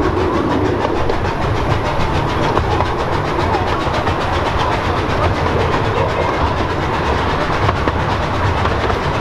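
10.25-inch gauge miniature railway carriages running along the track, heard from on board: a steady rumble of wheels on rails with rapid, irregular clicking.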